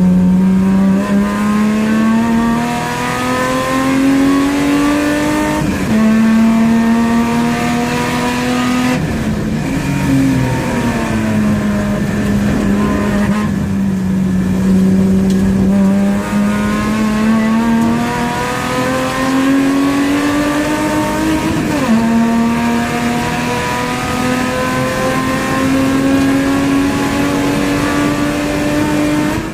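Race car engine heard onboard during a lap, pulling hard through the gears. Its pitch climbs steadily and drops sharply at two upshifts. About a third of the way through, the engine falls and jumps about under braking as it changes down.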